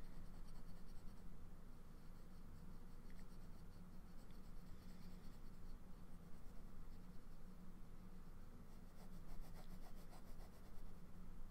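A pen nib scratching softly on paper in quick, short writing strokes, over a faint steady low hum.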